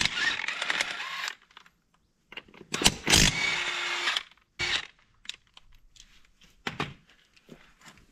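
Cordless impact wrench rattling in bursts as it undoes the front wheel nuts of a quad. The longest bursts come at the start and about three seconds in, with two short ones later and light clicks between.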